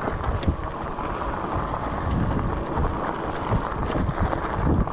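Wind buffeting the microphone while a fat-tyre e-bike is ridden, with a low, uneven rumble.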